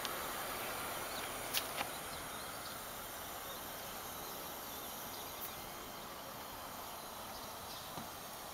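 Steady outdoor background noise, with two sharp clicks close together about a second and a half in and a fainter click about midway.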